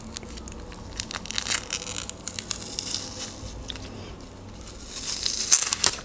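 Dried fish being torn apart and its skin peeled off by hand close to the microphone: dry crackling and crunching, busiest from about a second in and again in a louder spell near the end.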